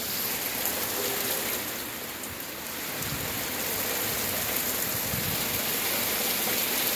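Thunderstorm rain pouring down steadily, with a low rumble for a couple of seconds about three seconds in.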